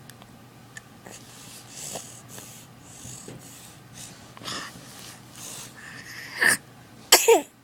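A sick baby's congested, wheezy breathing through a stuffed-up nose, soft repeated breaths. Near the end come two louder bursts, the second with a falling voice.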